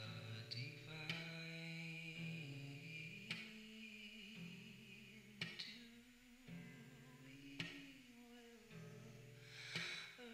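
Slow music: a low voice singing or humming long held notes, with a sharp stroke about every two seconds.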